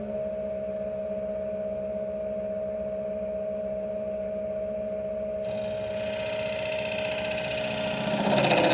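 Wood lathe running steadily with a motor whine; about five seconds in, a turning tool starts cutting into the spinning wet canary wood bowl blank, adding a rushing hiss that grows louder toward the end.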